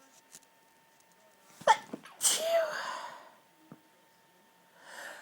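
A woman's stifled sneeze: a sharp, held-back burst about a second and a half in, then a breathy rush of air with a short squeak in the voice, held in rather than let out fully.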